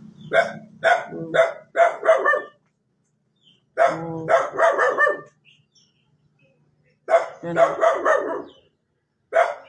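A dog barking in quick runs of four or five barks, about two barks a second, with short pauses between the runs.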